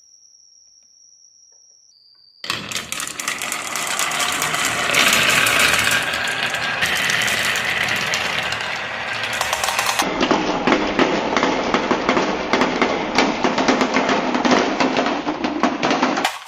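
Many marbles rolling and clattering down a wooden marble run, a dense rapid rattle that starts about two and a half seconds in and changes in tone about ten seconds in. Before it, only a faint high steady tone.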